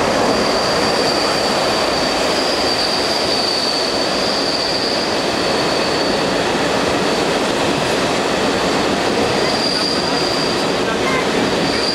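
Railway wheels squealing against the rails, a steady high-pitched squeal over the constant rolling noise of a train in the station. The squeal fades about halfway through and comes back near the end.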